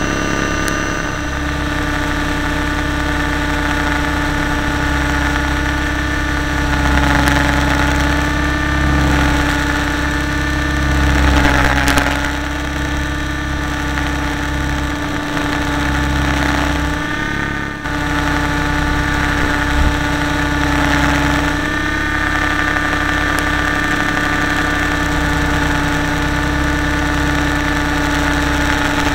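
RC model helicopter in flight, heard from a camera mounted on the model itself: a steady motor and gear whine over the rotor's low rumble, swelling briefly a few times.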